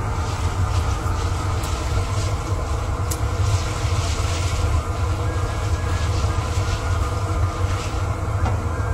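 Gas burner under a kettle-corn kettle running with a steady low rumble. Over it comes a steady hiss and a few faint pops from the corn as it is stirred.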